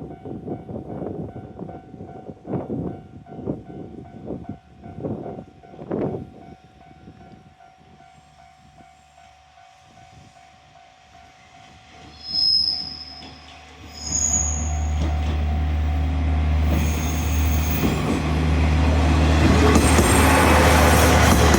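A KiHa 40 diesel railcar's engine drone comes in loud about two-thirds of the way through and keeps building as the train draws close. Before it, a level-crossing alarm sounds over irregular clanks for the first several seconds, then fades out. Two brief high squeals follow just before the engine arrives.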